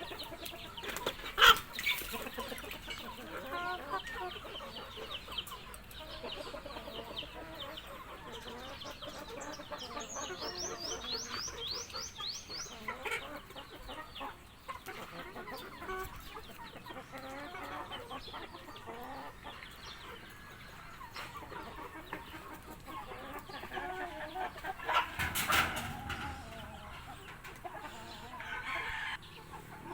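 A flock of domestic chickens clucking continuously, with higher chirping calls among them. A sharp click comes about a second in, and there is a louder burst of calling near the end.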